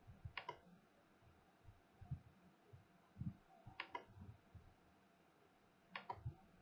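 Computer mouse button clicking three times, each a quick press-and-release pair, about half a second, four seconds and six seconds in, against a near-silent background with faint low thuds.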